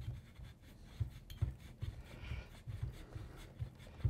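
Handling sounds of an Aero Precision Lahar suppressor being fitted onto the rifle's muzzle by hand: faint rubbing with scattered light metallic clicks and soft knocks.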